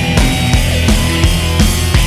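Background rock music in a heavy metal style, with a driving drum beat.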